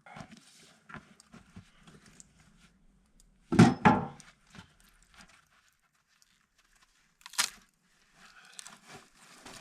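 Firewood being split by hand: a heavy strike on a log about three and a half seconds in, followed at once by a second knock as the pieces fall apart, then a lighter single knock about seven seconds in. Faint rustling and clatter of split wood being handled in between.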